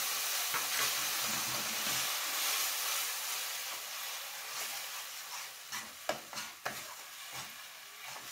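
Spiced onion, ginger-garlic and tomato purée masala sizzling in hot mustard oil in a frying pan as it is stirred and fried down. The sizzle is steady at first and fades, while the spatula scrapes and knocks against the pan more often in the second half.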